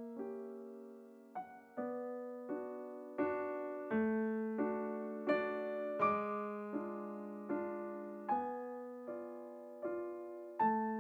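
Soft background piano music: single notes and chords struck about every three-quarters of a second, each ringing and fading before the next.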